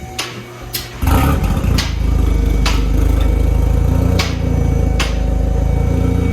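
VW Jetta engine starting about a second in and settling into a steady, loud idle through a newly fitted aftermarket downpipe and cat-back exhaust. Sharp knocks sound every second or so.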